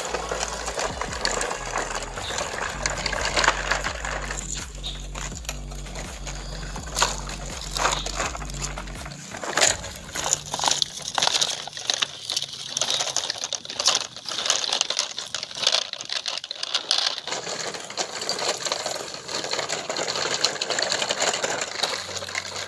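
Plastic toy trucks rolling over rough ground, their wheels and loose loads rattling and clicking in a fast, irregular clatter.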